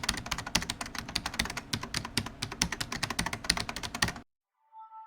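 Fast, irregular clicking of typing on a keyboard, stopping suddenly about four seconds in.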